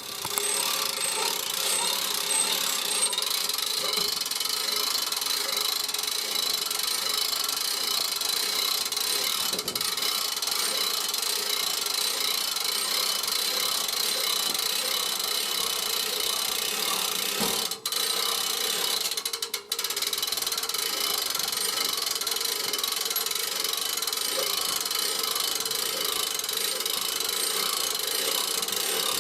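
Winch hauling a log up the ramps onto a bandsaw mill: a steady mechanical ratcheting and grinding that runs on with two brief breaks a little past the middle.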